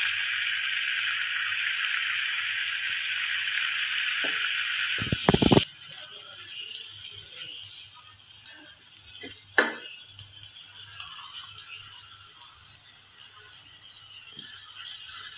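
Chopped garlic sizzling in a little hot oil in a frying pan, a steady hiss that turns thinner and higher about six seconds in. A few knocks come just after five seconds, and a single click near ten seconds.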